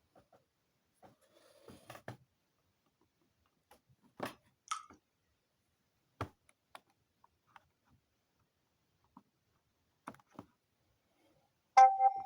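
Scattered light taps and clicks of smartphones being handled, then near the end a loud electronic alarm tone from a phone suddenly starts.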